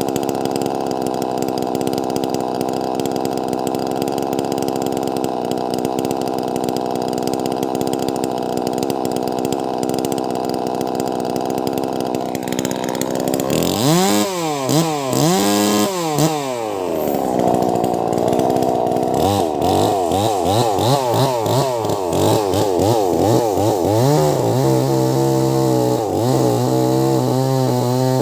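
Wagner 580 two-stroke chainsaw with a 24-inch bar working through a large log. The engine runs at a steady pitch for about the first half, then its pitch swings up and down over and over as the load on the chain changes.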